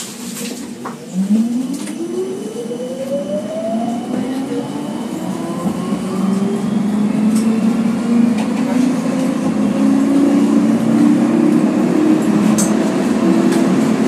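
Electric tram accelerating, heard from inside: the traction motors give a whine that rises steadily in pitch for several seconds, then settles into steady running noise of wheels on rails with a low hum.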